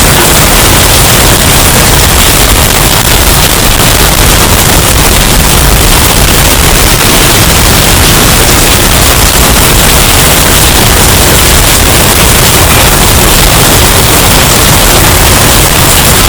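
Hurricane wind sound effect, bass boosted and heavily distorted: a loud, steady rush of noise with a booming low end, clipped throughout.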